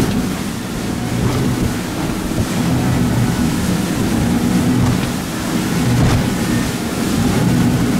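Motorboat underway through choppy water: a steady low engine drone under rushing wind buffeting the microphone.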